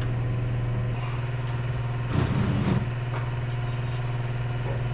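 Steady low machine hum from a motor running in the workshop, with a brief clatter of metal parts being handled about two seconds in.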